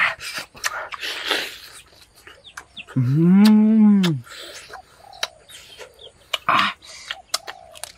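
Chewing and lip-smacking, a string of short wet clicks, with one long, low hum-like call about three seconds in whose pitch rises and then falls.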